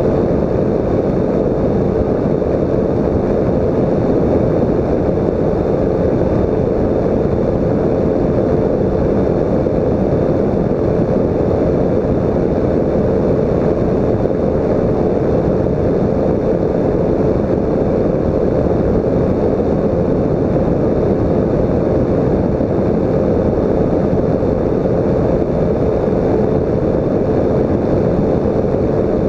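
Microlight trike's engine and pusher propeller running steadily in cruising flight, mixed with wind rushing over the microphone. A steady hum sits under the loud, even noise.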